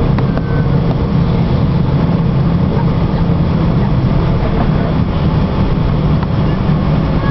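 Cabin noise of a Boeing 777-300ER taxiing, its GE90 engines running at taxi power: a steady low hum under a dense rushing noise.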